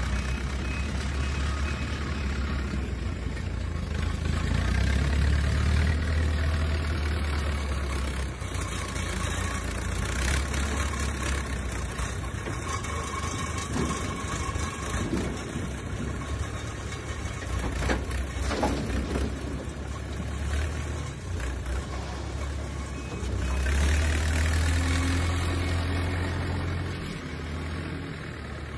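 Backhoe loader's diesel engine running under load as it scoops, lifts and tips its front bucket, its note swelling louder about five seconds in and again near the end.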